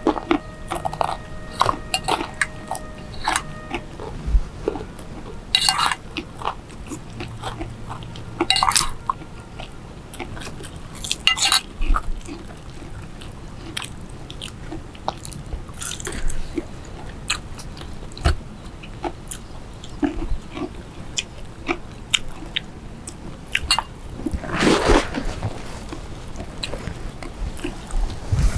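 Close-up eating sounds: chewing and biting, with sharp clicks and several louder crunches of crisp fried food such as crackers, the loudest about 25 seconds in.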